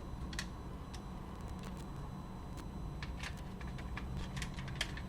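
Small plastic clicks and taps as the plastic front cover of a Sony WM-FX491 cassette Walkman is handled and fitted onto its shell. One click comes about half a second in and a quick run of clicks in the last two seconds, over a low steady hum.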